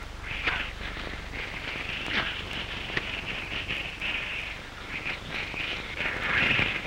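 Crackling hiss of an old optical film soundtrack, swelling and fading unevenly, with a few faint clicks.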